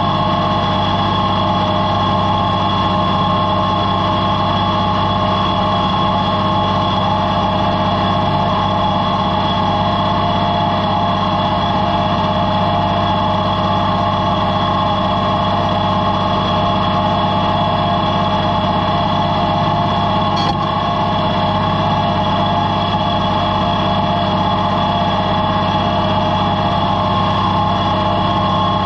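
Oliver-built farm tractor engine running steadily under load, pulling a plow through sod.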